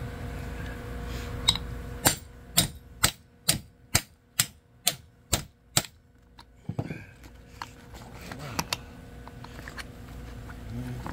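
Hammer striking a grommet setting tool to set a stainless steel grommet in sail cloth: about nine sharp blows, about two a second, starting about two seconds in, followed by a few lighter knocks.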